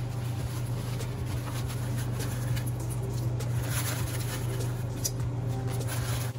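A pan of vegetable curry simmering on a gas stove, with soft crackles and pops over a steady low hum. A little past the middle, a handful of green beans is dropped onto the curry, adding a brief patter of light knocks.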